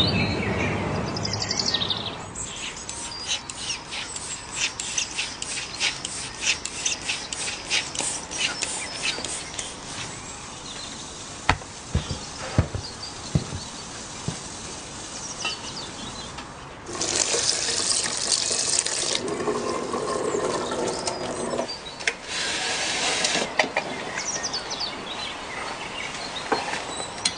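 Water running from a kitchen tap into a sink in two spells of about two seconds each, one a little past halfway and one about two-thirds of the way through. Before them comes a stretch of many quick light clicks and taps.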